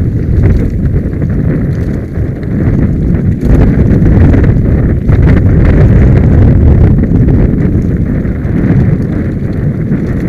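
Mountain bike running fast down a rocky trail: a loud, continuous rumble and rattle of tyres and bike juddering over loose stones, with many small knocks, and wind buffeting the microphone.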